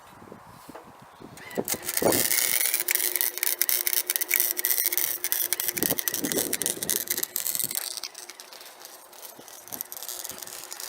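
Harbor Freight welder's arc crackling steadily as a bead is run on a car's exhaust pipe. It starts about a second and a half in and stops after about six seconds, leaving a few scattered clicks.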